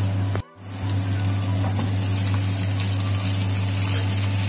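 Sliced onions with cumin seeds and julienned ginger sizzling in hot oil in a steel frying pan as the tempering (baghar) fries, a steady hiss with small crackles over a low hum. The sound cuts out briefly about half a second in.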